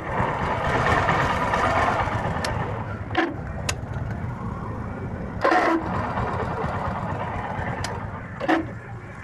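Small single-cylinder motorcycle engine running with the electric starter engaged, giving a rough rasping 'kharr' noise with a few short louder bursts. The mechanic traces the noise to a fault inside the starter motor, not the magneto or roller.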